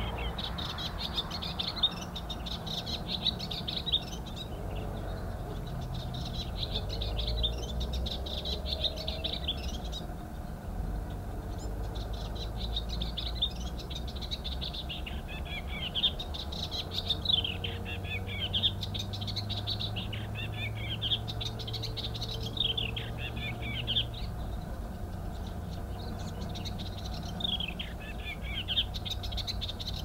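A small grey-brown warbler singing: repeated phrases of quick, jumbled notes, each two to three seconds long, with short pauses between them.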